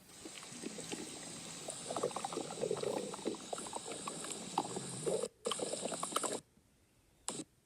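Stomach growling: a run of irregular wet gurgles and bubbling rumbles that breaks off abruptly a little over six seconds in, then one brief gurgle near the end.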